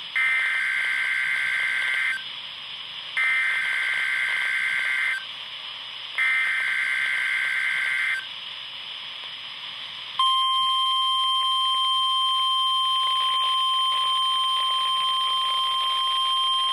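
NOAA Weather Radio weekly test signal through a Midland HH50 weather radio's speaker: three two-second bursts of SAME digital header data, a second apart, then about ten seconds in the steady 1050 Hz warning alarm tone starts and holds.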